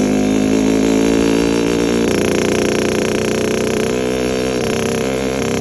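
Yamaha RX-King two-stroke single-cylinder motorcycle engine running through an underbelly (kolong) exhaust, giving a crisp, growling note. The note shifts slightly about two seconds in.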